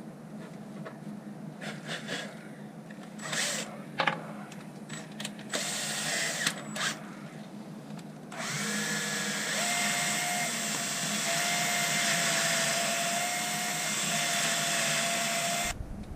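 Power drill pre-drilling screw holes for a bracket. Clicks and short bursts of handling and trigger come first, then from about eight seconds in the drill runs steadily for about seven seconds, its whine rising as it spins up, and it stops suddenly near the end.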